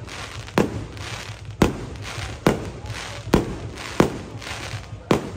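Fireworks bursting overhead: six sharp bangs about a second apart, each trailing off in a short echo.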